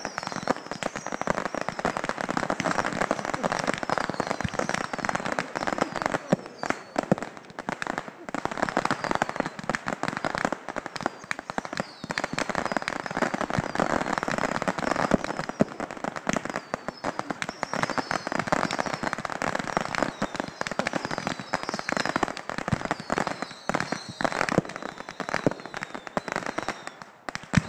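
A massed barrage of bottle rockets and fireworks going off together: a dense, continuous crackle of pops and bangs, with many short, high, falling whistles mixed in.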